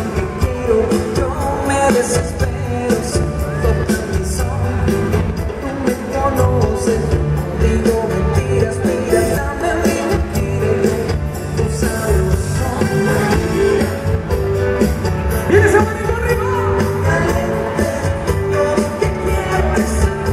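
Live band performing a song with a man singing into a microphone, drums and band playing loudly and steadily.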